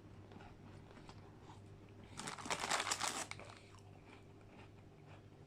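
A loud, crackling crunch lasting about a second, beginning about two seconds in, close to the microphone: a bite into McVitie's digestive biscuit mixed with McFlurry ice cream. Faint mouth sounds follow.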